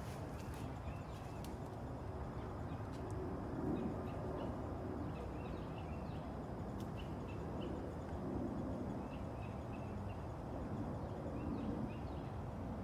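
Outdoor background of a steady low rumble with scattered short, high bird chirps throughout.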